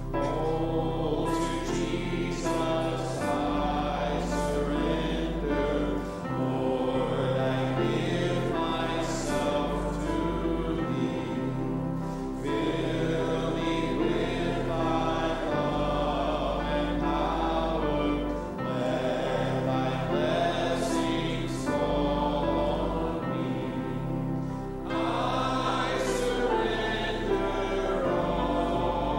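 Many voices singing a hymn together with instrumental accompaniment, a sustained bass note that changes every few seconds under the voices.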